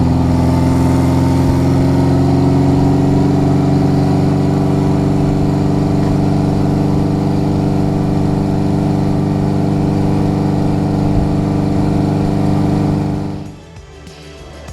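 Honda CB550's air-cooled inline-four engine running, its pitch rising slightly over the first couple of seconds and then holding steady. The engine sound stops about thirteen and a half seconds in, giving way to quiet music.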